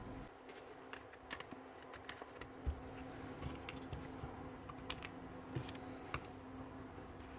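Scattered light clicks and taps of small tool parts and screws being handled and fitted during hand reassembly of a cordless drill, with a faint steady hum underneath. The sharpest knock comes close to three seconds in.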